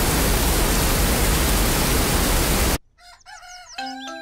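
Steady hiss of heavy rain, cutting off suddenly a little under three seconds in. Short bird chirps follow, then the first few notes of a light tune.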